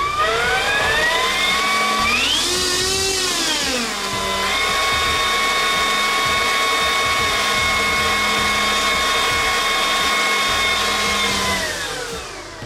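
Electric ducted fan of an RC jet spooling up with a rising whine to throttle up, peaking about three seconds in and settling into a steady high whine, then winding down near the end.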